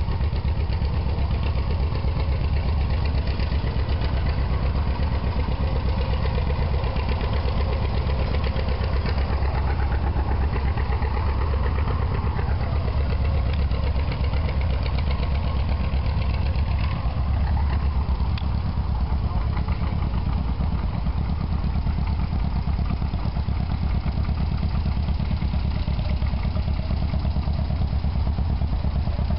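Vintage tractor engine running steadily close by, a low, even pulsing engine note.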